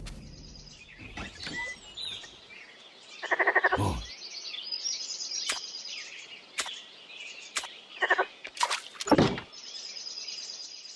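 A frog croaking a few times, one long rattling croak about three seconds in and shorter ones near eight and nine seconds, over steady high chirping.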